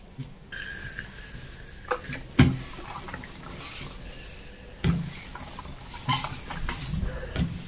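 Several sharp knocks and clatters on an ironing board, the loudest about two and a half seconds in, as fabric is smoothed flat and a steam iron is set down and pushed across it.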